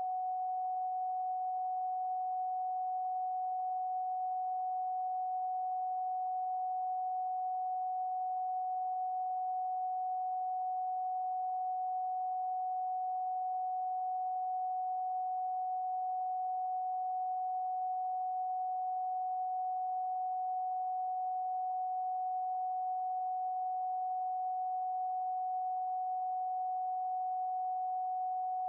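Electronic sine tone of a 'protection frequency' healing track, held at one unchanging pitch in the upper-middle range. A faint, very high steady whistle sits above it, with a soft hiss around the main tone.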